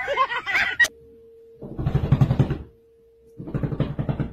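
Two rough, pulsing animal calls, each about a second long and about a second apart, over a faint steady tone.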